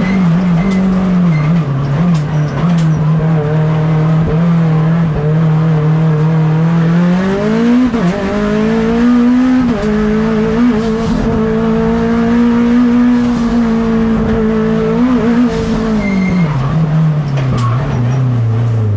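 Mitsubishi Lancer Evolution X race car's turbocharged 4B11 inline-four engine heard onboard under load. Its note climbs about eight seconds in and holds high. It falls away steadily over the last few seconds as the car slows.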